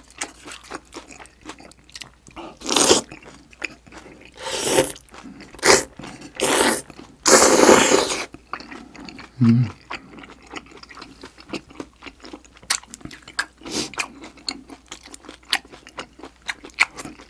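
Close-miked mouth sounds of eating beef small-intestine hot pot: wet chewing and lip smacks throughout, with several longer slurps in the first half, the longest about eight seconds in. A short closed-mouth hum comes just before ten seconds.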